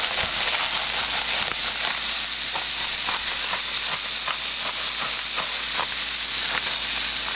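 Striped bass fillets frying in olive oil in a nonstick pan: a steady high sizzle with frequent small, irregular crackles and pops.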